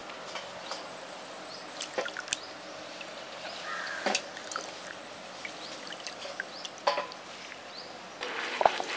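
Handfuls of soaked, wet grain dropped and spread onto a stone hand mill: soft wet patters with scattered sharp clicks of grains landing on the stone. Near the end a louder, steadier noise sets in.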